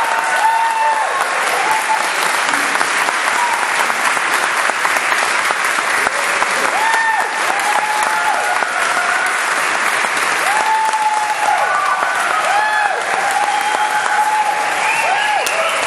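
Audience applauding steadily, with people calling and whooping over the clapping now and then.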